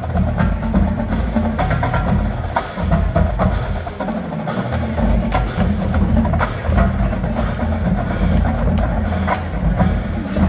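Marching band percussion playing: a run of sharp, dry clicks over low drums and held low tones.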